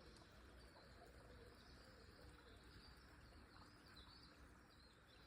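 Near silence: faint outdoor ambience, with a few faint bird chirps in the middle.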